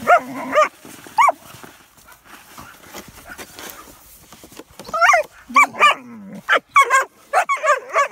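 German Shepherd puppies barking and yipping in short high-pitched bursts: a few at the start, a lull, then a quick run of yips from about five seconds in.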